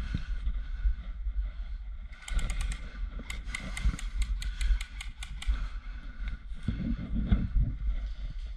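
Airsoft guns firing: a quick burst of about five sharp shots a couple of seconds in, then a run of rapid shots at about five a second lasting some two seconds, over a low wind rumble on the microphone.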